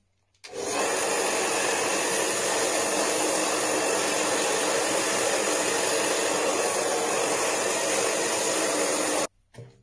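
Handheld hair dryer with a concentrator nozzle, blowing hair onto a round brush. It switches on about half a second in, runs at a steady level, and cuts off suddenly near the end.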